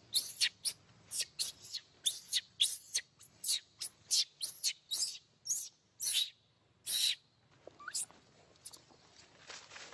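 Baby macaque crying: a run of short, high-pitched squeals, about two a second, turning fainter and sparser after about seven seconds.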